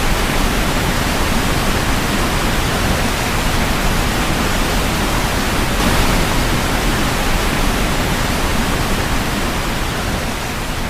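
Floodwater rushing in a steady, loud, even torrent.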